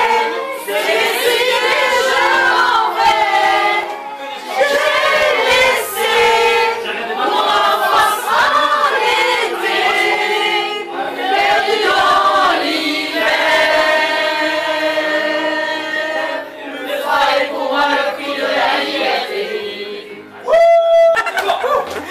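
A group of women singing a song together, voices in a loose chorus. Near the end a brief, loud high note rises sharply above the group.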